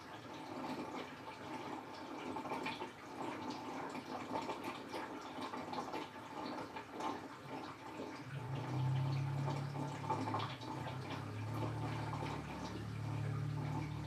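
Toshiba Star Crystal Drum 5 kg washing machine in its rinse cycle: water sloshing and dripping in the tub with small splashes. About halfway through, a low motor hum comes in as several short runs while the washer agitates the rinse water.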